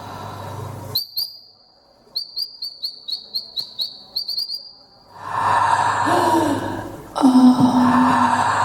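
A high-pitched whistle sounding a quick run of short notes on one pitch, each with a small upward flick at its start. After a few seconds it gives way to a loud rushing noise with a low hum underneath.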